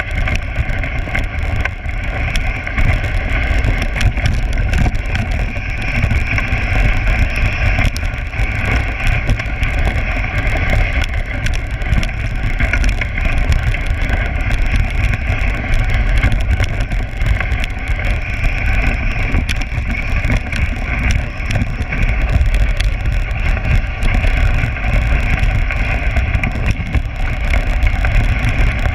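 Dog sled gliding fast over a packed snow trail: a continuous rumble and hiss from the runners on the snow, with wind on the microphone.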